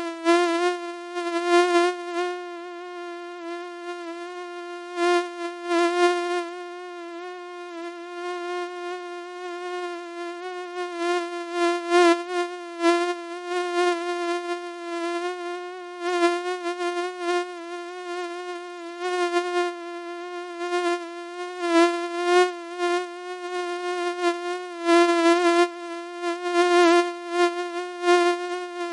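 Mosquito buzzing: a steady, high-pitched whine of wingbeats that holds its pitch, with slight wavers, and repeatedly grows louder and fainter.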